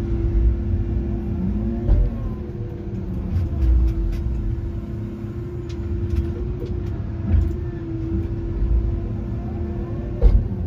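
Tigercat 822 feller buncher running steadily, heard from inside its cab, with a deep rumble and hydraulic whines that rise and fall as the boom and bar saw head are worked. Several sharp knocks and thumps come through, a loud one near the end.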